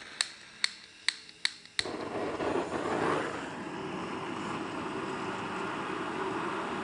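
A lighter's ignition clicking five times, about two a second, then a steady rushing hiss as the flame catches while the kindling wood chips are lit from the top.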